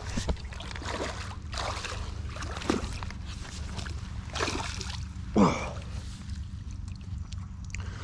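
Water sloshing and splashing in short, irregular bursts as a fishing landing net is pushed into and moved through the shallow margin, the loudest splash about five seconds in. A steady low rumble runs underneath.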